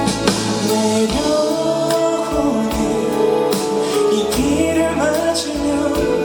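Music: a pop ballad performed live, with a singing voice over band accompaniment and occasional drum hits.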